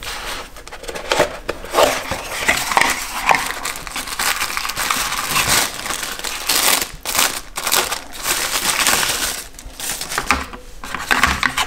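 A cardboard product box being opened by hand and its wrapping crinkled and pulled out, with steady rustling and many small knocks and clicks of handling.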